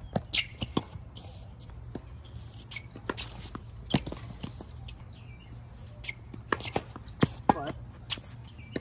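Tennis played on a hard court: irregular sharp pops of racket strikes and ball bounces, mixed with quick footsteps. The loudest pops come a little past seven seconds in.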